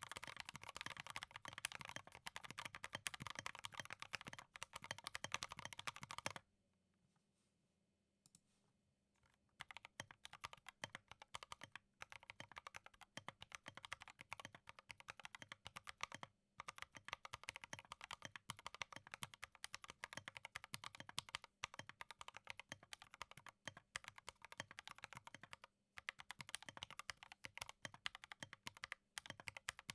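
Typing on a Drop Alt mechanical keyboard with Gateron Ink Black linear switches and OSA-profile keycaps. A fast run of keystrokes stops after about six seconds, and a pause of about three seconds holds a single keypress. Then steady typing resumes, with two short breaks.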